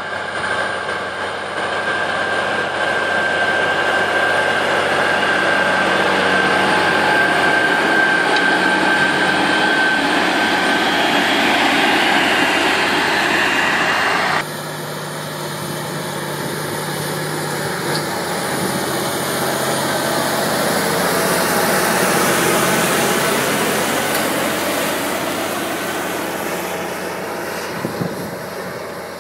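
New Holland T9.670 tractor's two-stage turbocharged FPT Cursor 13 diesel engine running under load as it pulls a seed drill and then a cultivator, with a steady high whine over it in the first half. The sound changes abruptly about halfway through, as a second recording starts.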